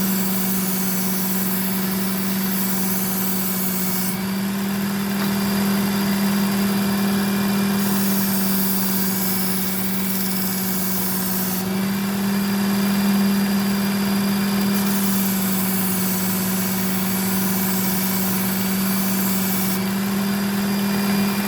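Work Sharp Ken Onion belt knife sharpener running steadily with its motor hum, while the edges of Shun Damascus kitchen knives are drawn across the moving belt, the high hiss of the belt on the steel changing every few seconds as each pass begins.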